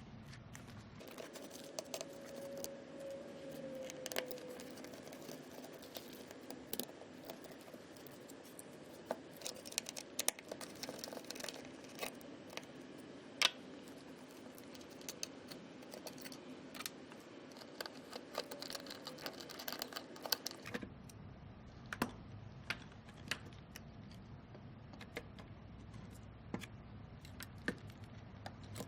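Faint, irregular clicks, taps and small rattles of screws, tools and plastic and metal parts being handled during disassembly of a Hamilton T1 ventilator, over a low steady background hiss.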